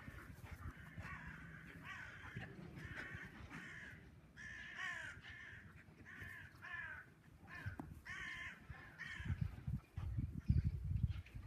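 Crows cawing over and over, a run of short harsh calls about every half second to a second. Low rumbling thumps come in near the end.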